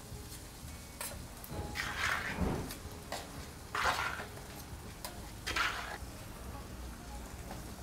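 A knife blade scraping and clinking against a steel pot as a soft, set white mixture inside is cut into squares: a handful of short scrapes, spaced a second or two apart.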